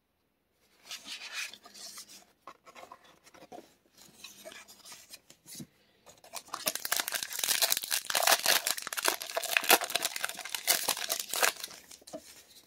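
Foil wrapper of a trading-card booster pack being torn open and crinkled by hand: scattered rustles at first, then a dense run of crackling from about halfway in.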